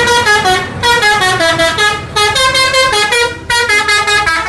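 Multi-tone bus horn playing a telolet melody: short held notes stepping up and down, in phrases that break off and restart about three times.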